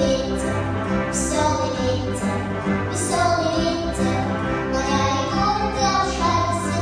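A solo voice singing a melody over an instrumental accompaniment with a steady beat, a vocal competition performance.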